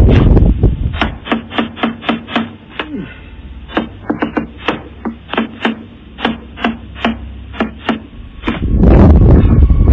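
Persistent knocking and pounding on a door, heard through a doorbell camera's microphone: runs of quick knocks, several a second, with short gaps between the runs. A loud, noisy rumble at the start gives way to the knocking, then comes back near the end.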